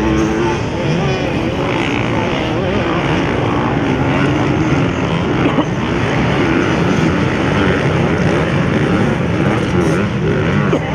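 Several motocross bikes' engines revving, their pitch rising and falling as the riders shift and throttle on and off, overlapping one another.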